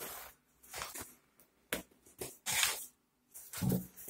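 Scissors cutting through the plastic wrap and tape of a cardboard parcel in a string of short snips and rustles, then the cardboard box flap pulled open near the end.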